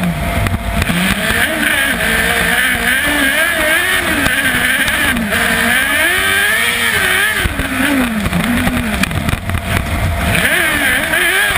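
Kart cross buggy's 600cc Yamaha R6 inline-four motorcycle engine heard on board, racing: its pitch rises and falls again and again as the throttle is opened and closed through the track's straights and corners.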